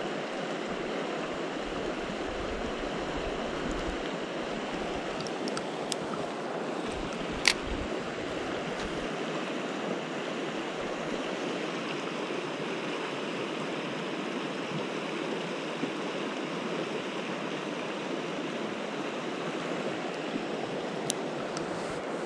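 Mountain river running over rocks: a steady, even rush of water. A few sharp clicks cut through it, the loudest about seven and a half seconds in.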